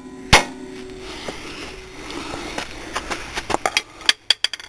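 A hammer strikes steel front-suspension parts once, sharp and loud, about a third of a second in. A run of lighter metallic clicks and taps follows near the end.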